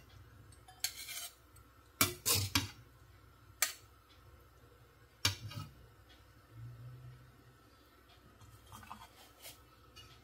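Steel spatula scooping food out of a steel kadhai into a small steel bowl: a few sharp scrapes and clinks of metal on metal, mostly in the first half, then only faint taps near the end.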